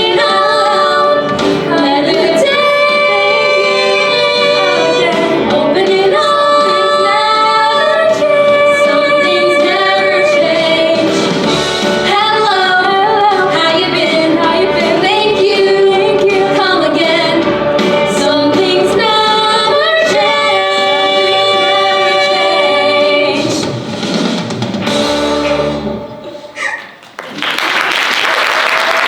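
Female voices singing a song together with instrumental accompaniment, ending in a final held note about twenty-three seconds in. Audience applause starts near the end.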